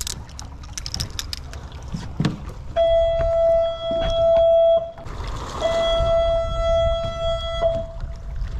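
A horn sounds two long steady blasts of about two seconds each, with a short gap between them, over a constant low rumble.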